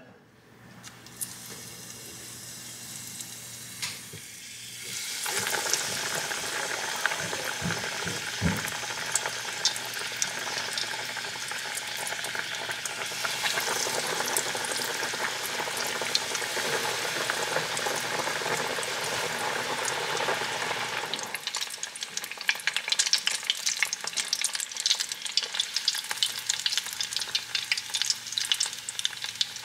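Oil pouring into a pot, then panko-breaded corn croquettes deep-frying in canola oil: from about five seconds in, a dense steady sizzle of bubbling oil, with a couple of low thuds about eight seconds in. After about twenty seconds the sizzle thins into sharper, sparser crackling and popping as the croquettes brown.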